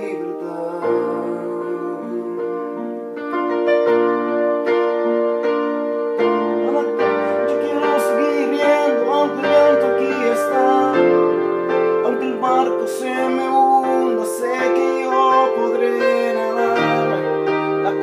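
Electronic keyboard playing an instrumental passage in a piano sound: held chords over a bass line that moves every second or two, with a few sharp accents midway.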